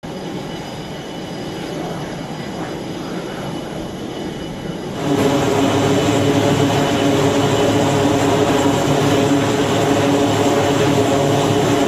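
Steady flight-deck engine noise, then from about five seconds in the louder drone of a carrier aircraft's turboprop engines running with propellers turning, a steady hum of several even tones over the rush.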